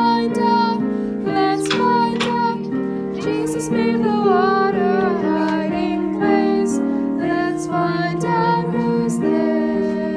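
Recorded children's song music: an accompaniment of held chords and plucked notes under a wavering melody line.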